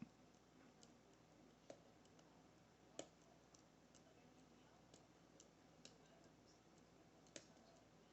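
Faint, irregular clicks from a short hook lock pick pushing up the pins of an Assa Maximum+ lock, the pins clicking as they are set toward the milling. The clearest clicks come about 3 seconds in and near the end.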